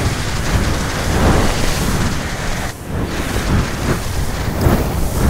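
Loud rushing noise of skis sliding through deep powder snow and wind, swelling with each turn about once a second and dipping briefly near the middle.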